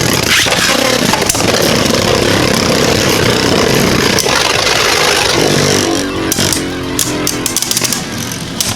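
Two Beyblade Burst spinning tops whirring and grinding against each other in a plastic stadium, with repeated hard clashes. About six seconds in, the whirring thins out into a quick run of sharp clicks and clatter.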